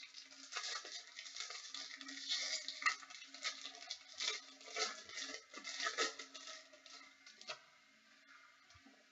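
Trading-card pack wrappers crinkling and tearing, with cards being handled, in irregular rustling bursts that die down after about seven seconds.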